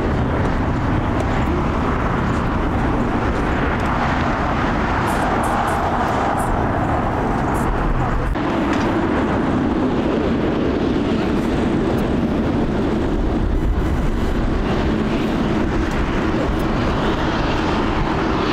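Jet airliner engines running loud and steady. A deeper drone sets in about eight seconds in.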